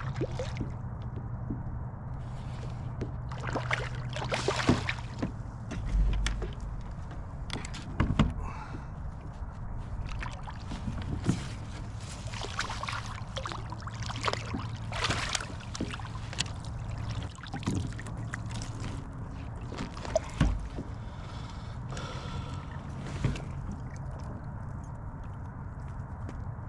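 Water sloshing and splashing around a kayak, with irregular swishes and knocks against the hull and gear over a steady low rumble.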